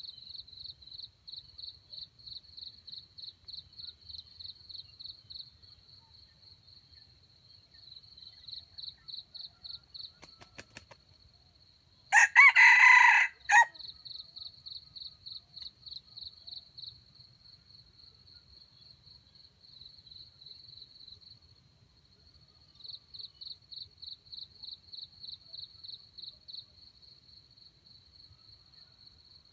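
A red junglefowl rooster crows once, a short crow of about a second and a half roughly halfway through, the loudest sound. Behind it, insects chirr in a steady high-pitched pulsing rhythm of about four pulses a second, with brief lulls.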